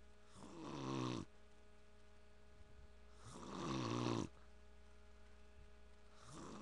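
A sleeping man snoring: three snores about three seconds apart, each swelling for about a second and then stopping abruptly, the third starting near the end.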